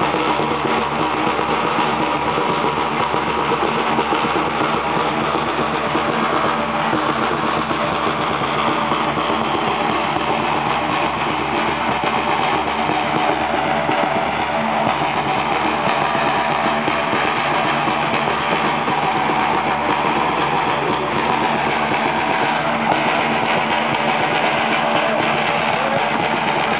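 Continuous loud music from a bear-dance troupe: large drums beaten along with pitched instruments playing.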